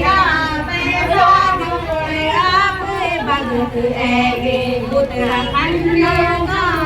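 A group of women chanting together in unison, their voices rising and falling without a break.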